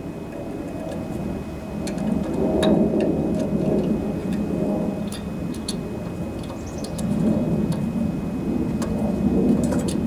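Wind rumbling on the microphone, rising and falling in two swells, with a few faint small clicks as a lawn-engine carburetor is slid onto its intake studs and its linkage rods are hooked up.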